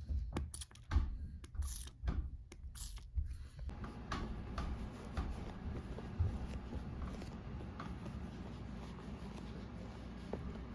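Handling noises from unboxing: a run of clicks and taps for the first three seconds or so, then a steady low hiss with occasional light ticks.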